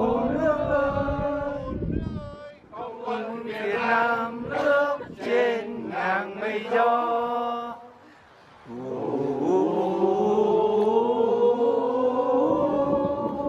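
Voices chanting in a slow, sung tone, with a short break about eight seconds in followed by a long held, slowly rising note.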